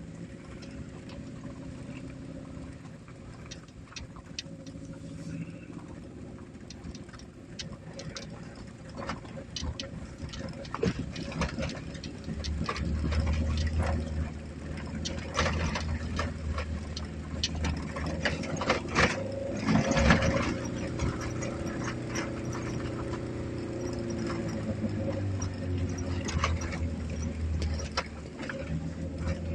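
Fiat Panda 750's 769 cc four-cylinder engine running loud and rough through a broken exhaust manifold as the car drives over a rough dirt track, with frequent knocks and rattles. The engine note grows louder and heavier about twelve seconds in.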